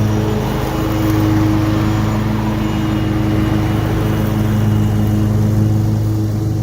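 Cub Cadet Pro X 600-series stand-on mower's engine running steadily under load while mowing, with the grass collector fitted.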